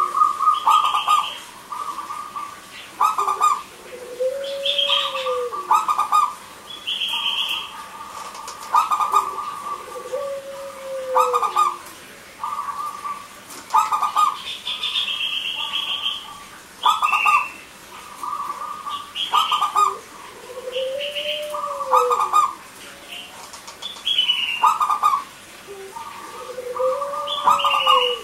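Zebra doves (perkutut) cooing again and again in short phrases, with higher chirps mixed in.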